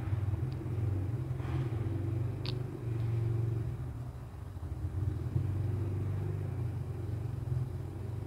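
A steady low rumbling hum, with a faint click about two and a half seconds in.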